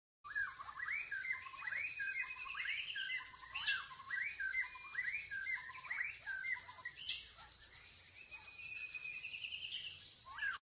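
Tropical forest ambience: birds whistling and warbling in quick, varied calls over a steady, high-pitched buzz.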